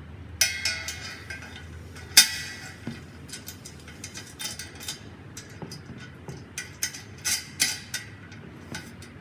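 Aluminium truss clamp being fitted onto an aluminium truss tube: a series of metal clinks and clacks as the clamp jaw closes around the tube and its bolt and wing nut are swung into place. The loudest is a sharp clank about two seconds in, with a short ring; a quicker run of clicks comes near the end.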